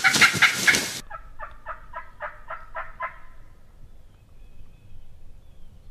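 Loud noisy sound cuts off about a second in. It is followed by a bird's rapid rattling call: about ten quick pitched notes in a run lasting about two seconds.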